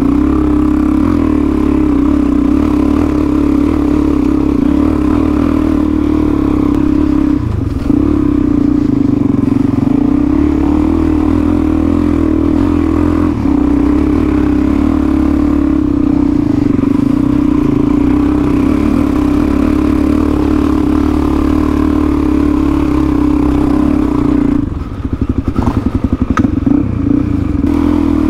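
Dirt bike's single-cylinder four-stroke engine held at steady high revs. Near the end the revs drop and it chugs slowly for a second or two, then picks up again.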